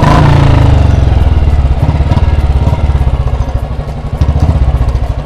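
Royal Enfield Bullet 350's single-cylinder engine running with an even, pulsing exhaust beat, a brief rev easing off at the start.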